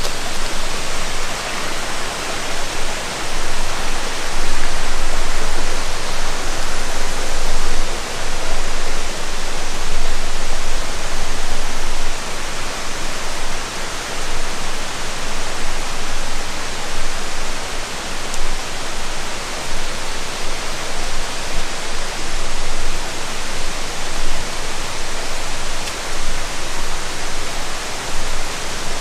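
Steady, loud rush of flowing water.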